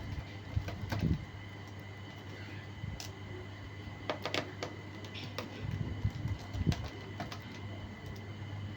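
Scattered clicks and light knocks of a laptop being handled and its case being opened, over a steady low electrical hum.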